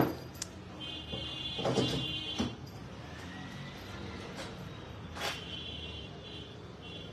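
Clicks and knocks of a plastic mascara tube and other makeup items being handled: a sharp click at the very start, a few knocks and rustles about two seconds in, and another short click about five seconds in.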